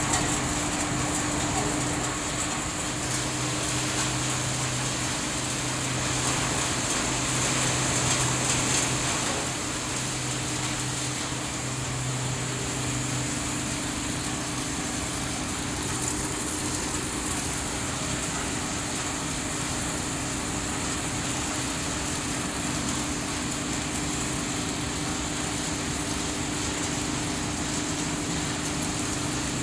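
Scrap refrigerator recycling and sorting line machinery running steadily: a continuous mechanical hum under a high hiss, slightly louder for a few seconds around the middle of the first third, with no distinct impacts.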